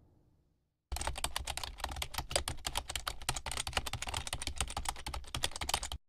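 Typing sound effect: a fast, uneven run of key clicks that starts about a second in and stops abruptly near the end, as on-screen text is typed out letter by letter.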